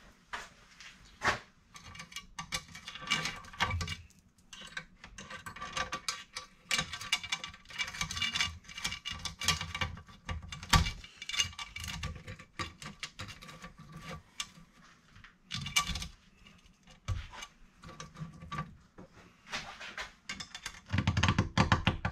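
Metal clinking and rattling of a Husqvarna saw chain being handled on a chainsaw bar clamped in a vise. Near the end a hand file starts rasping across a cutter tooth.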